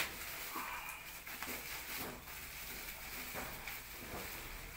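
Thin black plastic bag and tissue paper crinkling in scattered, irregular rustles as they are pulled away from a plant's root ball.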